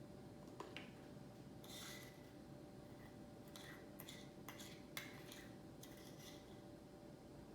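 Near silence with a dozen or so faint, scattered clicks and light scrapes of small utensils or containers being handled.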